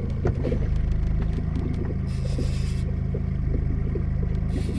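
Boat motor running steadily at slow trolling speed, a low even hum. Two brief bursts of high hiss cut in, one about two seconds in and a shorter one near the end.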